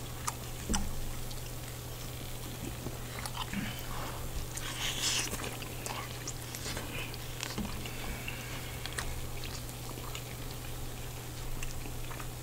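Close-miked chewing of cheese-covered fried chicken, with small wet clicks and lip smacks scattered throughout. A steady low hum runs underneath.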